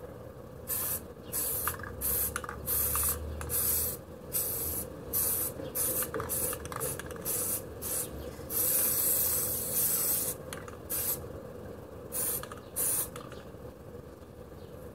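Aerosol spray-paint can spraying white paint in a run of short hissing bursts, with one longer spray a little past halfway.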